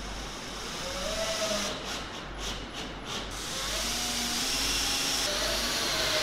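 A power tool running, with a faint tone that rises and falls as the load changes; it grows louder about halfway through and then holds steady.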